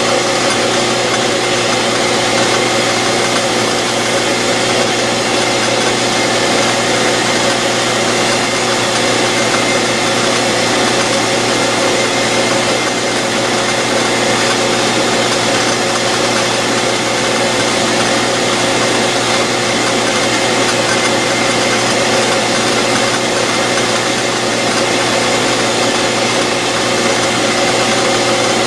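Lathe motor running steadily with a constant hum, spinning a dial indicator bezel while its plastic lens is polished with abrasive paste.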